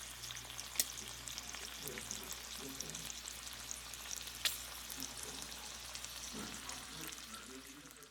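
Bacon frying in a cast iron skillet: a steady sizzle with scattered crackles of spitting fat, and two sharper pops, one about a second in and one about halfway through.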